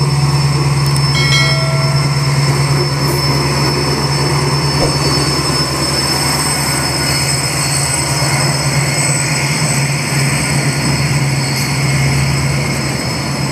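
Indian Railways express passenger train passing close at speed, a steady loud rumble of wheels on rail with a thin high ring held over it.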